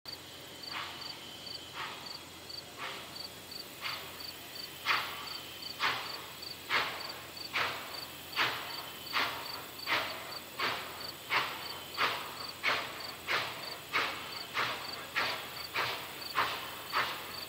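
Norfolk & Western 611, a 4-8-4 steam locomotive, chuffing as it starts a passenger train and gets up to speed. The exhaust beats quicken from about one a second to nearly two a second and grow louder after about five seconds as the engine works harder.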